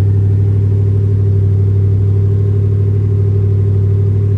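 Ford F-150 Raptor engine idling steadily, an even low hum.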